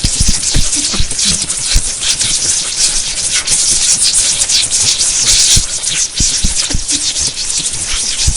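Electricity crackling: a loud, continuous hiss of sparking, thick with rapid sharp snaps and crackles.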